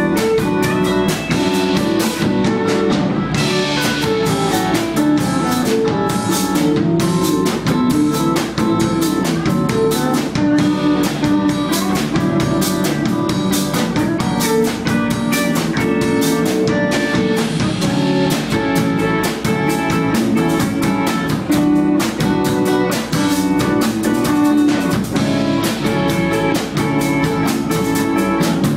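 Live band playing, with guitar over a steady drum-kit beat.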